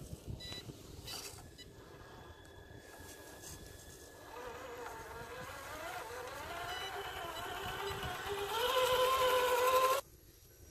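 Electric motor and gear drivetrain of an RC scale crawler truck whining as it climbs rock, the pitch wavering and rising with the throttle. It grows louder near the end and then cuts off suddenly.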